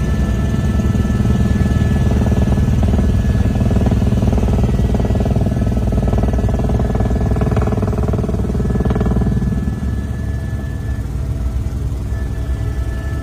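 Aircraft engines droning inside the cabin on final approach, with a steady high whine over a deep rumble; the drone drops a little about ten seconds in.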